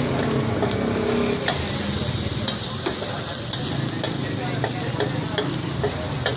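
Beef keema with capsicum and tomato sizzling in oil on a large flat tawa griddle, while a metal spatula scrapes and clacks against the plate in irregular strokes as the mince is stirred and chopped.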